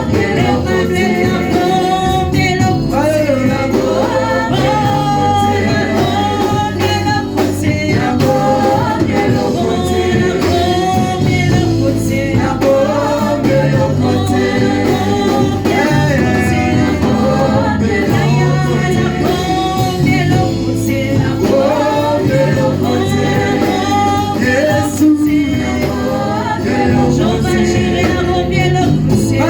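Gospel worship music: a congregation or choir singing with band accompaniment and a steady bass line.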